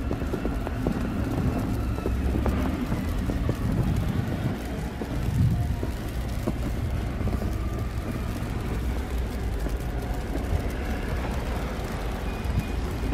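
Road traffic on a snow-covered street: a steady low rumble of passing cars' engines and tyres, with some wind on the microphone. Near the end a faint repeated beeping begins.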